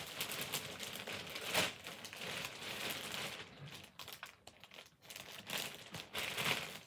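Thin clear plastic bag crinkling as hands pull and work a plush toy out of it. The crinkling thins out a little past halfway through, then picks up again near the end.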